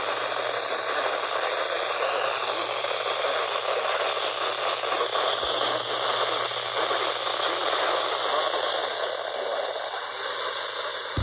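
Radio receiver static: a steady hiss with a low hum under it, ending in a sharp click.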